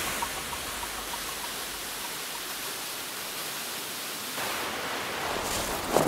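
Steady rush of a waterfall, growing a little fuller about two-thirds of the way through, with faint rhythmic pulses of music fading out in the first second or so. Near the end, the first footsteps crunch in snow.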